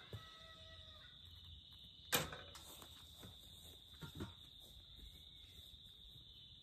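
Faint outdoor morning ambience with a steady high insect drone. A brief animal call comes just after the start, a sharp knock about two seconds in, and soft footsteps on grass as a person walks away.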